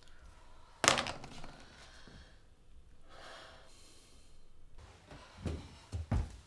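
A sharp knock about a second in, then a long breath out like a sigh, then a couple of heavy footsteps on a floor near the end.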